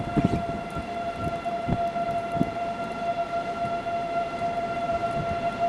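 Outdoor tornado warning siren sounding a steady, unwavering tone, over irregular low rumbles.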